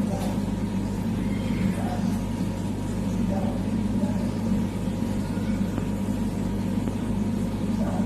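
Steady low electrical hum of aquarium equipment, unchanging throughout.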